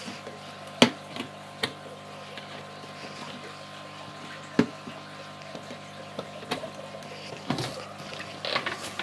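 Clear plastic tub being handled, with several sharp knocks and clicks and some water sloshing near the end, over a steady low hum.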